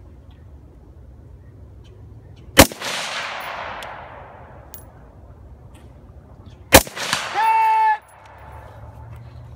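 Two single shots from a scoped AR-style rifle, about four seconds apart. The first is followed by a long echo fading over a second or two. Shortly after the second comes a brief ringing tone lasting under a second.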